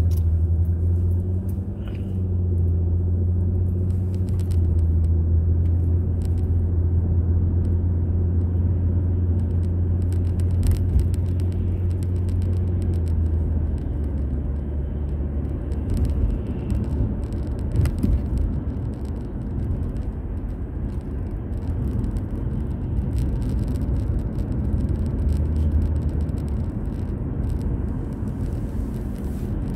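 A car driving, heard from inside: a steady low engine and road rumble. For about the first half a low drone holds steady over it, then it gives way to a rougher, uneven rumble with a few clicks.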